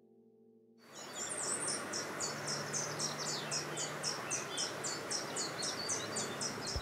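Daytime meadow ambience: an evenly repeating high chirping, about three to four chirps a second, with a few bird chirps over a steady outdoor hiss. It starts about a second in, after a faint music drone cuts out.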